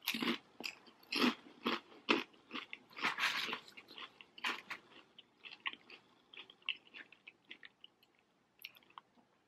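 Close-up crunching and chewing of a crispy fried chicken wonton: many sharp crunches in the first few seconds, thinning to softer, sparser chewing toward the end.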